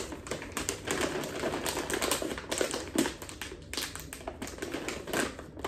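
A plastic snack bag of popcorn crinkling and rustling in a dense string of crackles as hands pull and twist at its sealed top, trying to tear it open.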